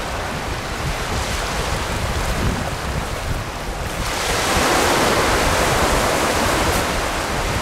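Wind buffeting the microphone over a steady rushing of surf on an open beach. The rushing grows louder and hissier about four seconds in.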